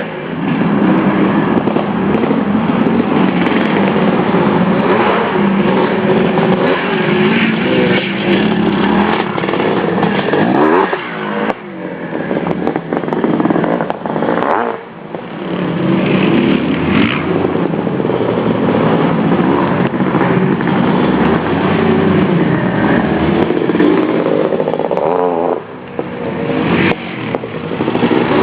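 Dirt bike engine running hard under throttle along a trail, revving up and down. The throttle drops off briefly about eleven, fifteen and twenty-six seconds in, then picks back up.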